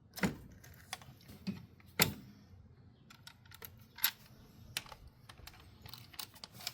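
Irregular sharp clicks and light knocks of plastic and metal parts being handled as an engine sensor and its connector are unplugged and removed, the loudest about two seconds in.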